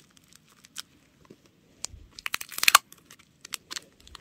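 Clear tape being pulled from the roll and wrapped around a paper squishy, with scattered crinkling and crackling of the tape and paper, and a denser, louder burst of crackling a little past halfway.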